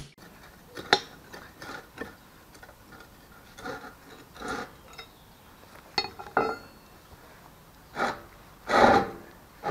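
Scattered sharp metallic clinks and short scrapes of a steel bar being handled against a split concrete well cover. The loudest, a longer noise of about half a second, comes near the end.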